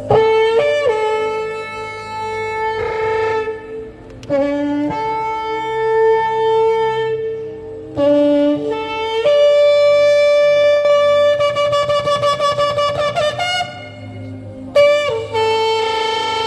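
Shofar blown in a series of long blasts, each swooping up in pitch as it starts. One blast near the middle wavers in quick pulses.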